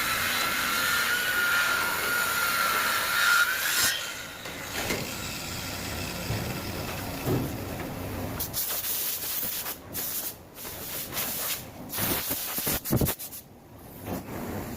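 Electric woodworking power tool, a circular saw or wood router, running through wood with a steady high motor whine that cuts off about four seconds in. After that comes uneven, rougher noise broken by several brief gaps.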